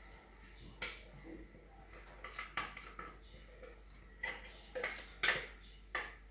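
Clinks and knocks from a Thermomix's stainless steel mixing bowl as it is handled and emptied out by hand: several short, sharp knocks spread through, the loudest about five seconds in.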